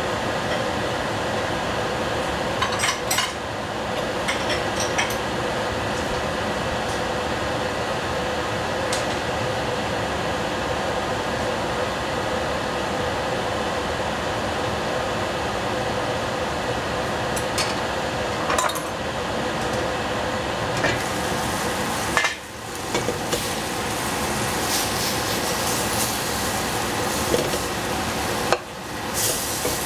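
Food cooking in a pot on the stove: a steady sizzling hiss, with a few brief clinks of a utensil against the pot.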